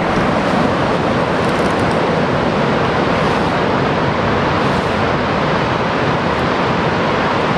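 Steady, loud rush of river water flowing over rocks.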